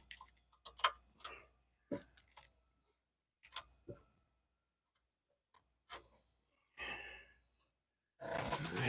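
Scattered small clicks and taps of hand tools and metal parts being handled while working on the ATV's starter solenoid mounting, followed by a breathy sigh near the end.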